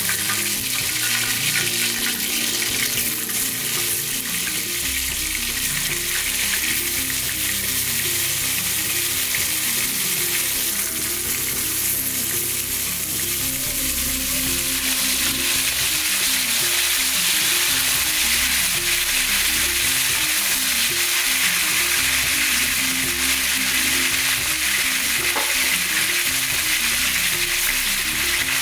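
Pieces of lionfish frying in hot oil in a frying pan, a steady loud sizzle.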